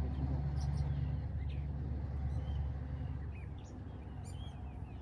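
Small birds chirping with short, scattered calls over a steady low hum that eases off a little after the middle.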